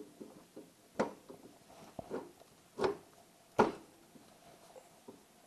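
Knocks and clunks of the Honda Valkyrie's rear final drive being handled and worked into place on the swingarm: four sharp knocks about a second apart, the loudest a little past halfway, with fainter clicks between.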